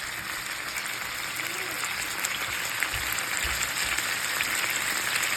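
Thick-cut lamb chops frying in a skillet: a steady sizzle with fine crackles.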